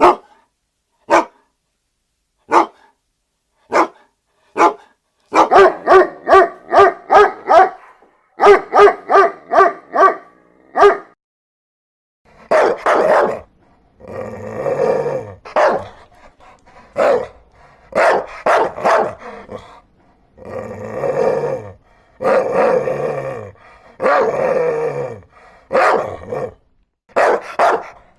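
A dog barking. It starts with single sharp barks a second or more apart, then gives two quick runs of about three barks a second. In the second half come longer, deeper, rougher barks about a second each.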